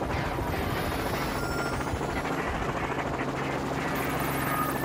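Small four-seat helicopter hovering just off the ground close by, its rotor and engine running loud and steady.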